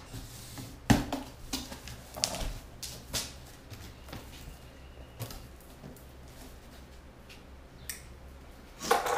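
A cardboard shipping box being opened, its tape cut and the flaps pulled back. There is a string of sharp tears, scrapes and knocks over the first three seconds or so, the loudest about a second in, then only faint handling noise and one more short loud burst near the end.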